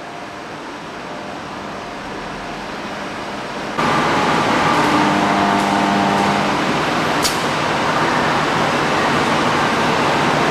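Steady running noise of tube-processing machinery on a metal-tube shop floor. It jumps louder about four seconds in, with a few held humming tones and a single sharp click a little later.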